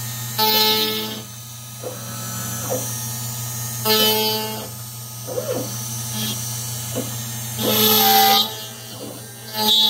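CNC router carving MDF: a steady hum runs under the machine's motors, which whine in pitched tones. The whine comes in about four bursts of roughly a second each, with short rising and falling glides between them as the head speeds up and slows down.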